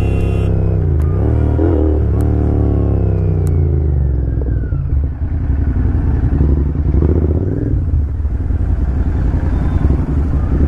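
Royal Enfield Continental GT650's 648 cc parallel-twin engine under way. Its note dips sharply twice about a second in, falls away over the next couple of seconds, then holds a steady pitch.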